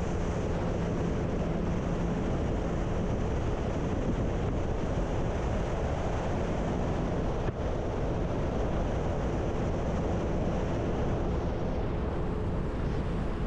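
Motorboat running across open water: a steady engine hum under rushing wind on the microphone and water noise.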